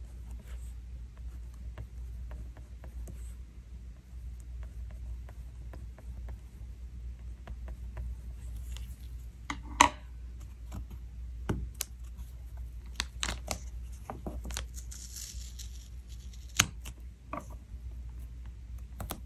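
Gel pen writing softly on thin planner paper, then stickers being handled: a short rustle as a sticker comes off its backing, and scattered sharp clicks and taps as it is pressed onto the page, the loudest about ten seconds in.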